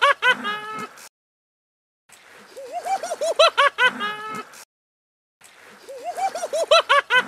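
A short run of about ten quick, chattering pitched call notes, climbing in pitch and then falling away, played three times over with total silence between. The three runs are identical, a looped sound clip.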